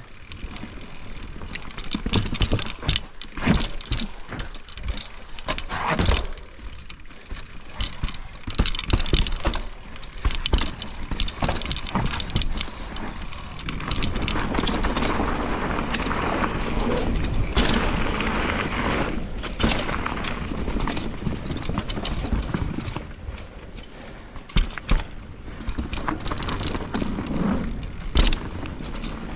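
Mountain bike descending a wet trail: frequent knocks and clatters from the bike going over roots and rough ground, over continuous tyre and wind rush, which grows steadier and louder about halfway through.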